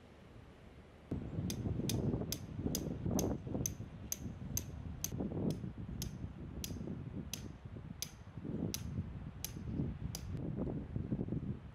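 Wind buffeting the microphone, with a run of about twenty light, sharp ticks starting about a second and a half in that slow down steadily, from about three a second to fewer than two a second, before stopping near the end.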